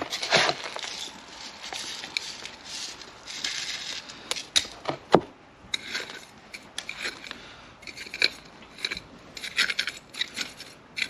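Tweezers jabbed again and again into gritty succulent soil mix in a pot, pushing it down into the gaps between the roots: irregular crunching scrapes and clicks.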